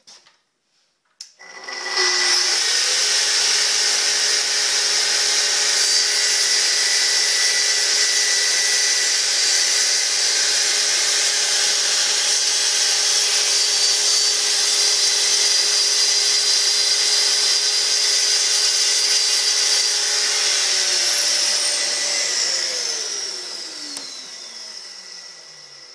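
Festool TS55 plunge-cut track saw starting up and running with a dust extractor pulling through its hose, cutting a lacquered panel along the guide rail, run backwards at a very slight depth for a chip-free cut. About twenty seconds in the saw is switched off and its pitch falls steadily as the blade spins down.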